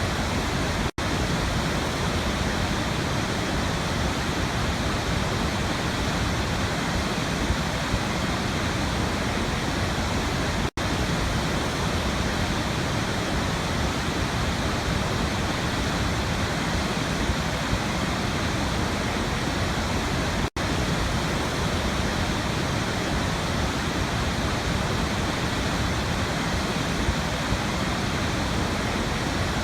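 Waterfall rushing in a steady, even roar of falling water. Three very short dropouts, about ten seconds apart, break it.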